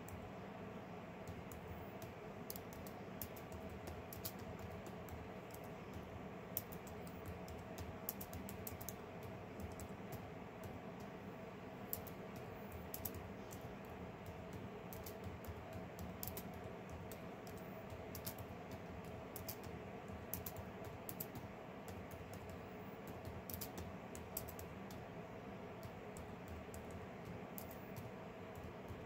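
Faint, irregularly spaced light clicks, like typing on a keyboard, over a steady low hum.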